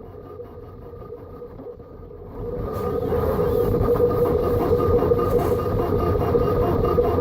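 CTC 3D printer running mid-print: a steady mechanical hum from its stepper motors and fans at two steady pitches, becoming clearly louder and hissier about two and a half seconds in.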